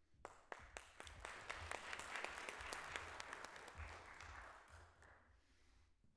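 Audience applauding: a few scattered claps at first, filling out into steady applause within about two seconds, then dying away near the end.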